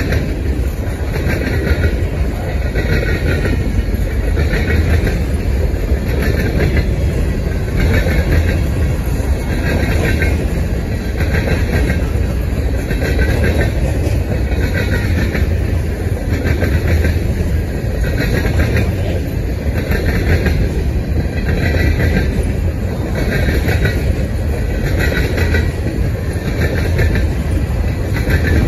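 Freight train of covered grain hopper cars rolling past: a steady low rumble of steel wheels on rail, with a clatter that repeats about once a second as car after car goes by.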